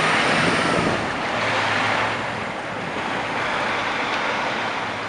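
Peterbilt heavy wrecker's diesel engine and tyres passing close as it tows a small cube truck, over a steady rush of city traffic.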